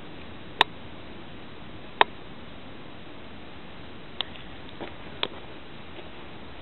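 Steady hiss with several sharp, brief clicks spaced irregularly through it.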